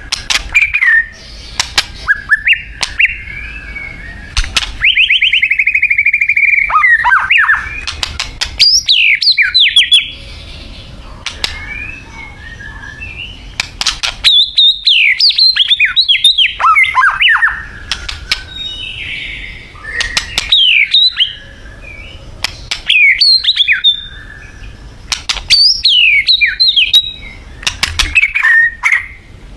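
White-rumped shama singing: loud phrases of fast sweeping whistled notes and a buzzy trill, mixed with sharp clicks, delivered in bursts with short pauses between.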